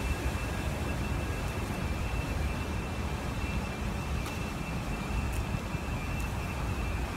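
A steady, fluctuating low rumble with a faint thin high tone held above it.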